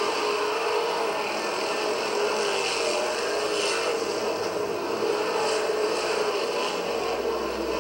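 A pack of V8 sprintcars racing around a dirt oval, engines running together in a continuous drone with brief swells as cars pass, heard through a worn VHS tape recording.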